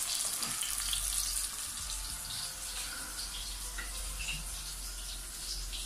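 A whole fish frying in shallow oil in a pan: a steady sizzle with scattered small pops and crackles. A low hum comes in about half a second in.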